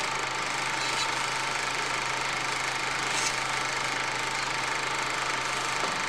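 A steady mechanical whirring run with a low hum underneath, unchanging throughout, with a faint tick about three seconds in.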